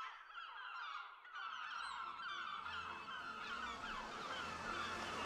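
A flock of gulls calling: many short, falling cries overlapping one another, with a low steady sound coming in underneath about a second and a half in.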